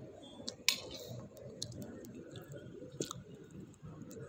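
Sharp clinks and taps of crockery and cutlery on a table, the loudest about a second in and another near three seconds, over a steady low background noise of the dining room.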